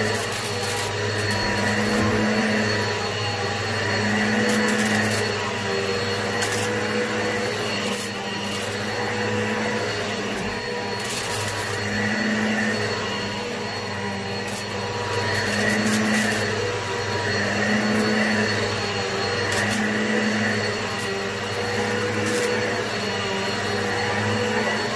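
Eureka PowerSpeed upright vacuum running on carpet. Its motor hum swells and eases about every two seconds as the head is pushed back and forth. Scattered crackling ticks come from grit being sucked up.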